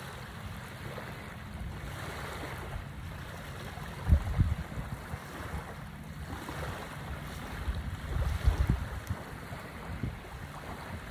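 Small waves washing onto a sandy shore, with wind buffeting the microphone in low gusts, strongest about four seconds in and again around eight to nine seconds.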